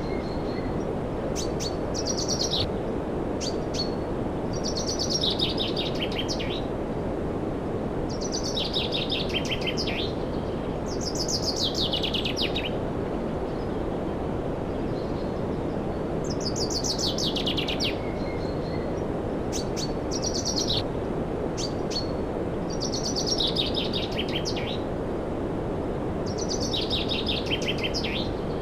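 Steady whooshing hum of an air conditioner running, with a bird calling over it again and again: short, buzzy trills that fall in pitch, every couple of seconds.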